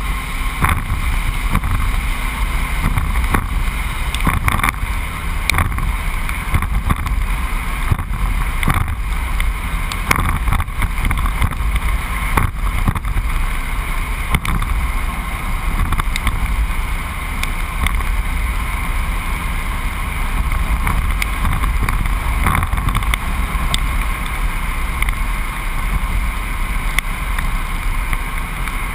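A truck driving along a road: a steady, loud rumble of engine, tyres and rushing air, with many short knocks and rattles from bumps along the way.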